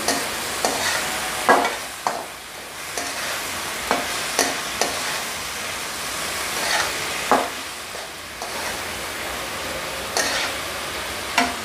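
Chicken and vegetables sizzling as they stir-fry in a metal wok, with a steady hiss and irregular scrapes and knocks of a spatula against the pan as they are tossed.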